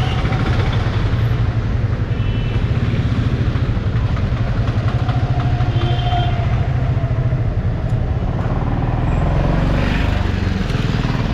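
Yamaha FZ25's single-cylinder four-stroke engine running steadily at low speed in slow traffic, with the bike pulling up and stopping near the end.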